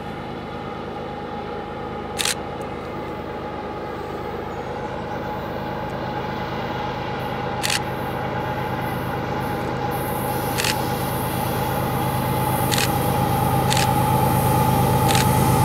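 GE diesel locomotives at the head of an approaching CN freight train running, a steady engine drone that grows louder as the train nears, with track noise coming in about ten seconds in. Half a dozen short sharp clicks are heard along the way.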